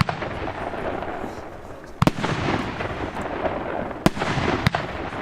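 Blackboxx Jumbo Mega Blaster firework battery with 50 mm shots firing: sharp bangs about two seconds in, four seconds in and again just after, over a continuous crackle and hiss of bursting effects.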